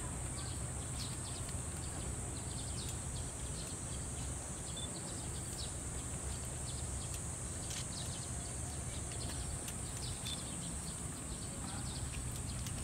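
Cicadas droning steadily in summer heat, one unbroken high-pitched hiss, over a low outdoor rumble with a few faint clicks.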